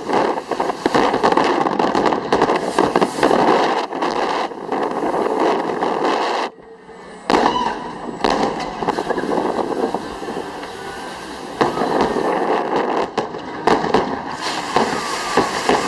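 Aerial fireworks display: a dense run of shell bursts and crackling bangs. About six and a half seconds in it drops off briefly, then resumes with a sharp loud bang.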